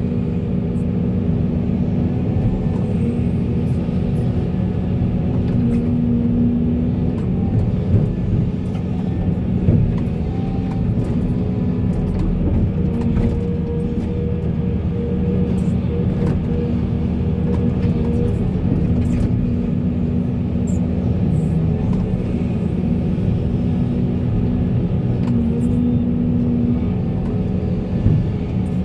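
Heavy diesel engine of a Volvo excavator running steadily under load, its tone swelling a little now and then, with scattered faint sharp clicks.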